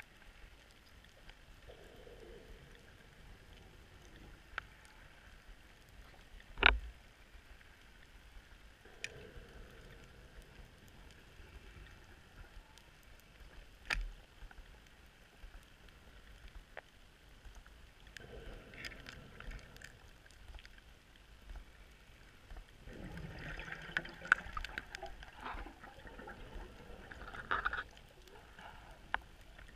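Scuba breathing heard underwater: every several seconds a regulator exhale sends out a gurgling rush of bubbles, with a longer, louder stretch of bubbling near the end. Two sharp clicks stand out, the louder about seven seconds in and the other about halfway through.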